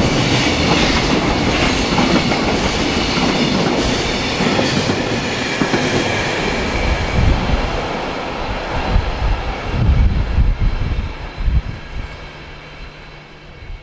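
Freight train of container wagons passing at speed, a loud steady rush and rumble of wheels on the rails. The sound fades away over the last few seconds as the end of the train draws off, with some low thumps as it goes.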